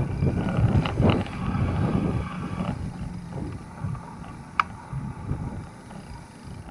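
Bicycle riding over a rough concrete alley, heard from the filming bike: a steady low rumble of tyres and rattling frame with wind on the microphone. There are a few knocks about a second in and a sharp click about four and a half seconds in.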